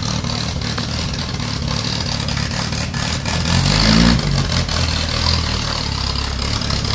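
Robin Hood kit car's engine running, with one brief rev that rises and falls about three and a half seconds in.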